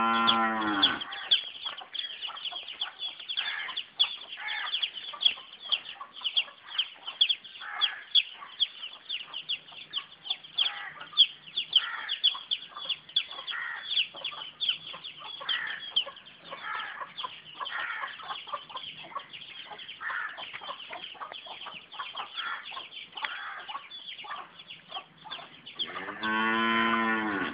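A cow moos at the start and again near the end, each a single drawn-out call about a second long. Between the calls, chickens cluck with a rapid run of high chirps.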